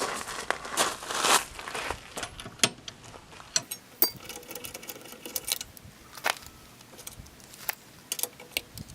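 Irregular metallic clicks and light clatter of tools being handled, with a brief rustling in the first two seconds.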